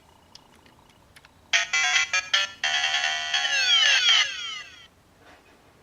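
DX Shakariki Sports Gashat toy playing electronic sound effects through its small speaker: faint clicks, then a short burst of electronic chimes about a second and a half in, followed by a longer jingle with falling pitch sweeps that fades out about five seconds in.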